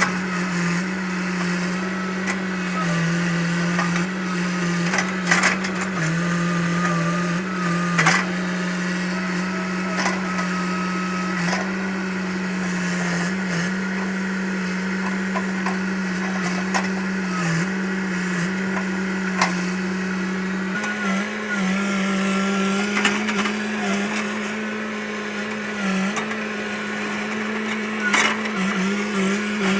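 Hitachi EX100 excavator running steadily under work, its drone shifting slightly in pitch, with scattered sharp cracks and snaps of wood as trees and branches are pushed and broken.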